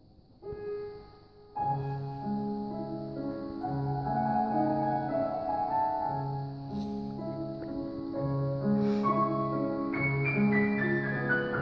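Solo grand piano playing classical music: a single note about half a second in, then continuous playing from about a second and a half, with a repeating bass under a melody that moves higher near the end.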